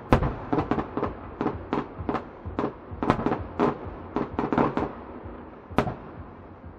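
Aerial firework shells bursting in a rapid series of bangs, about two or three a second, thinning out near the end with one last sharp bang about six seconds in.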